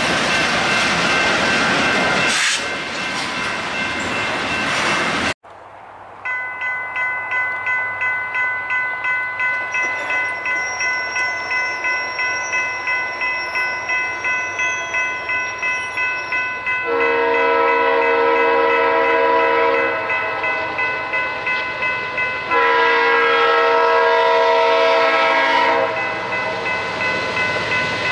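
Loud rumble of a passing freight train, cut off suddenly about five seconds in. Then a railroad crossing bell clangs about twice a second. From about halfway through, a diesel locomotive's air horn sounds long chord blasts for the grade crossing.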